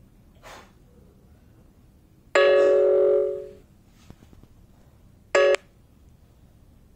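Two loud steady ringing tones with a bell-like ring: one lasting about a second that fades away, then a short one about three seconds later.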